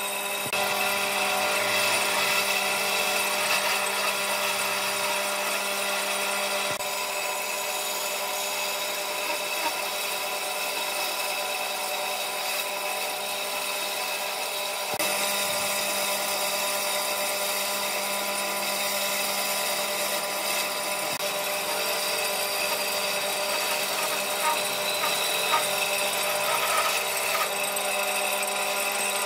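Bandsaw running and cutting through a thick softwood block: a steady motor hum with several steady tones under the hiss of the blade in the wood.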